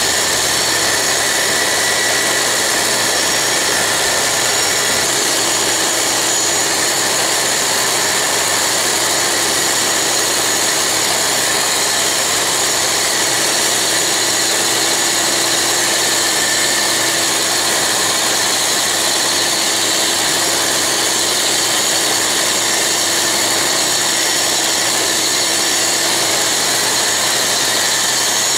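Dumore tool post grinder running at high speed, its wheel grinding the tip of a hardened steel lathe center that the lathe turns slowly against it. The center is being reground to a 60-degree point. The sound is a loud, steady whine and grinding hiss that runs without a break.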